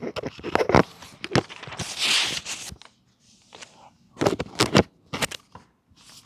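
A scatter of sharp knocks and clicks with rustling, including a longer hissing rustle about two seconds in: the sound of people moving and handling things.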